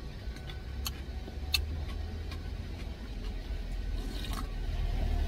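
Truck engine idling as a steady low rumble in the cab, with a few sharp clicks of a plastic spoon against a plastic tub. About four seconds in comes a short slurp as cold cucumber soup is drunk straight from the tub.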